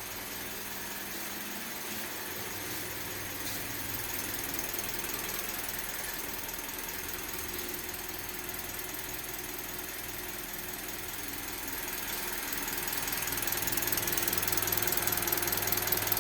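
Toyota Calya's 1.2-litre four-cylinder engine idling steadily while being warmed up in the morning, growing louder over the last few seconds.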